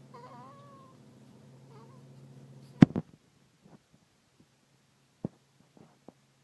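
Sleeping baby's tiny squeaky snore: a high, wavering squeak in the first second and a fainter one a little later, over a low steady hum. A sharp knock about three seconds in is the loudest sound, followed by a few faint clicks.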